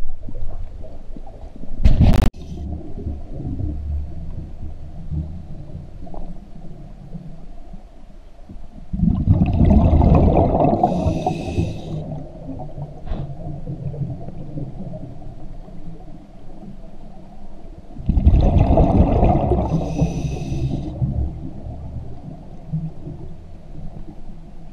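Scuba regulator exhaust heard underwater: two bursts of exhaled bubbles rushing out, each about three seconds long and about nine seconds apart, over a steady low underwater rumble. A sharp knock about two seconds in.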